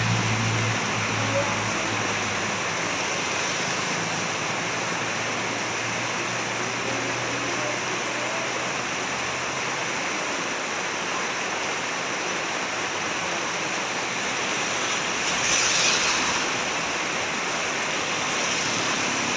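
Steady heavy rain, a dense even hiss that swells briefly about three-quarters of the way through. A low hum underneath fades out about halfway.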